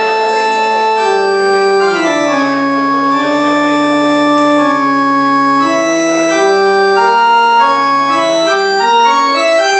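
Giant walk-on floor piano played with the feet, its electronic organ-like voice sounding a toccata as a chain of sustained notes, each held until the next key is stepped on. A lower line of notes steps down through the middle and climbs back up near the end.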